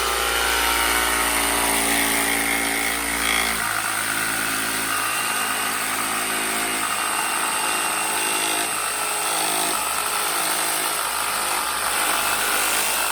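Electric jigsaw running steadily as it cuts through pine. The motor's note changes about four seconds in.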